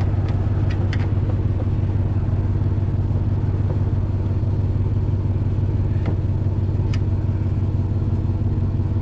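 Vehicle engine running at a steady, even speed with a constant low hum and no revving, and a few faint clicks over it.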